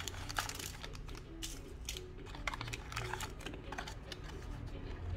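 Small cardboard accessory box being opened and its contents handled: irregular light clicks and taps of the flaps and packed parts under the fingers.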